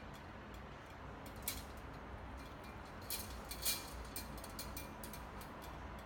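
Irregular light clicks and ticks over a faint steady hum, with a few louder clicks about one and a half and three and a half seconds in.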